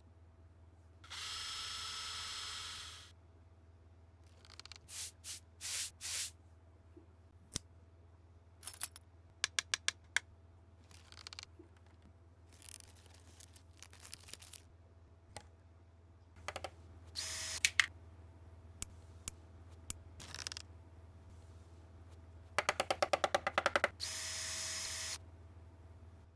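A small power tool's motor runs in short bursts of one to three seconds, with scattered clicks and knocks between them and a quick run of clicks near the end.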